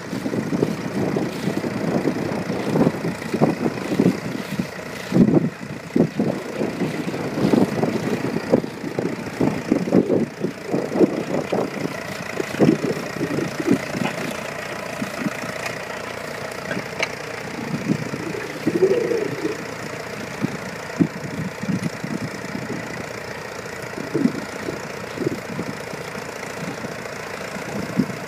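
Vintage tractor engine running, with uneven low thumps throughout.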